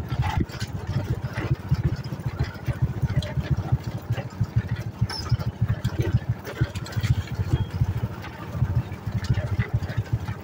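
Motorcycle running while riding slowly over a rough dirt-and-gravel track: a low, uneven rumble that rises and dips in loudness, with scattered light clicks and rattles.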